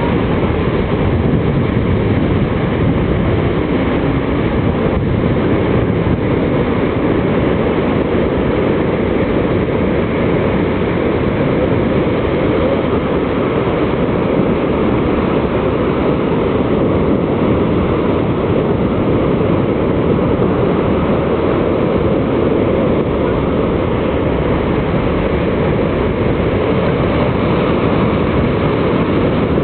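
Heavy ocean surf: a continuous, even rumble of big waves breaking, with no distinct crashes standing out.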